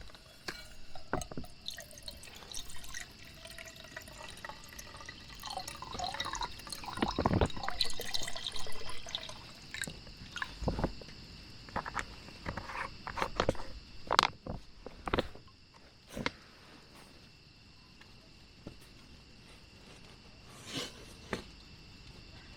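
Water dripping and splashing, with scattered sharp clicks and knocks of things being handled, busiest in the first half and thinning out after about two-thirds of the way in. Two faint steady high tones run underneath.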